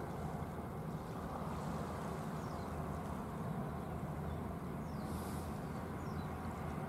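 Steady low drone of a boat's engine running, even throughout, with a noisy wash over it.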